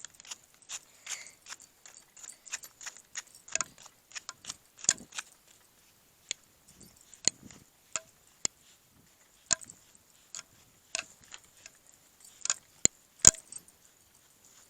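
Irregular sharp clicks and light taps, one or two a second, a few of them with a soft thud underneath.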